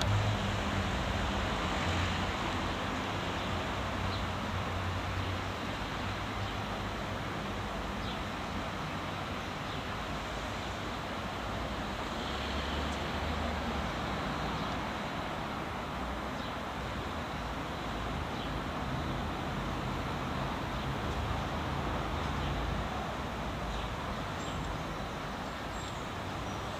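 Steady road traffic: cars and other vehicles passing on a town street, a constant wash of tyre and engine noise with a low hum that swells and fades as vehicles go by.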